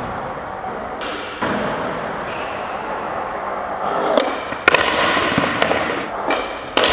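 Skateboard wheels rolling fast over concrete with a steady rumble. A sharp crack about two-thirds in and a heavy impact near the end fit the board popping an ollie and landing.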